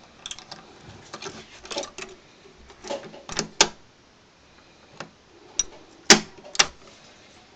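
Sharp metallic clicks and taps of a 3-lever try-out key being worked in a 3-lever lock, with the other keys on the ring clinking, about a dozen at uneven spacing, the loudest about six seconds in. This key does not catch the levers, so the lock stays shut.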